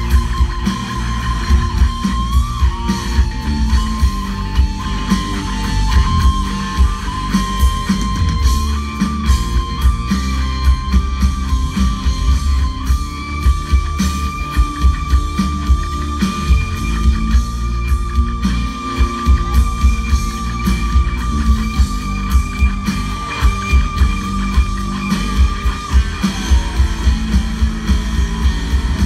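Live rock band with a lead electric guitar solo over drums and bass: the guitar moves in short stepped phrases, then holds one long sustained note for about thirteen seconds before it drops away, recorded from within the crowd.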